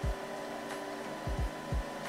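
Steady whirring hum of the QIDI X-Plus 3 3D printer's fans running while it is powered on, broken by a few short, deep thuds: one at the start and three close together about a second and a half in.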